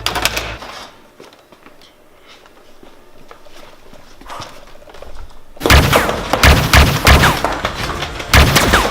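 A few quiet seconds, then, about two-thirds of the way in, a loud burst of gunfire-like shots with heavy thumps, several in quick succession.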